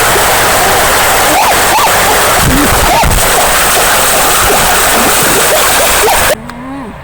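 Loud rushing river water with faint voices over it, cut off abruptly near the end by a much quieter stretch with a voice and a few light clicks.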